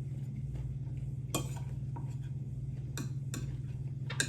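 Eating utensils clinking against a dish, about four sharp clicks, over a steady low hum.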